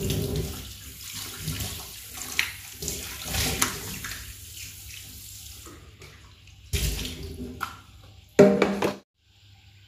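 Kitchen tap water running into a stainless steel sink while an orange plastic bowl is rinsed and rubbed by hand. Near the end there is a knock, then a louder clatter, after which the sound cuts off.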